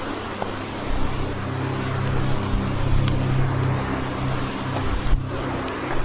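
Ambient background music of held low notes, over a steady rushing hiss, with a couple of short knocks.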